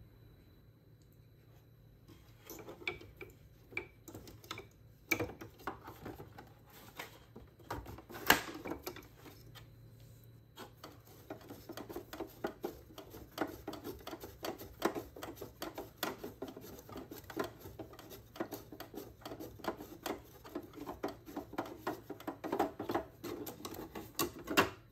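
Hard plastic clicking, knocking and rattling as the pump housing of a Zodiac TX35 robotic pool cleaner is twisted and worked loose from its body. Scattered knocks come first, the loudest about eight seconds in, then a dense run of quick clicks and rattles.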